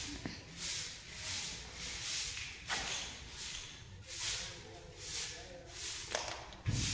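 Hand broom sweeping a concrete floor in quick, even strokes, about one and a half swishes a second. A low thump near the end.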